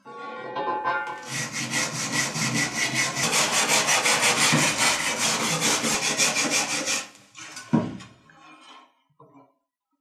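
A brush scrubbing the rusty blade of an old hand-forged cleaver after its soak in oxalic acid: quick, even back-and-forth strokes, about five a second, for about six seconds. A single sharp knock follows near the end.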